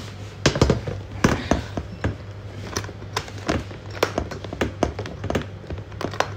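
Clicks and knocks from a hard-shell carry case being handled, a quick cluster about half a second in and then single knocks scattered through the rest.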